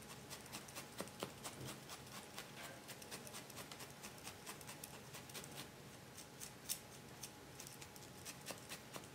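Felting needles stabbing repeatedly into wool fibre, a quick run of soft crunching ticks several times a second, as a layer of wool is felted onto the body underneath.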